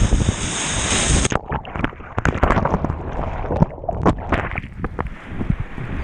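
Rushing river water and splashing picked up by a GoPro, with wind buffeting the microphone. About a second in the sound changes abruptly to irregular splashes and knocks.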